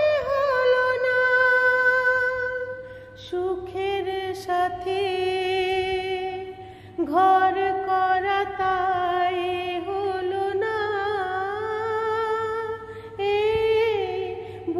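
A woman singing a slow Bengali film song, holding long notes with vibrato in phrases broken by two short pauses.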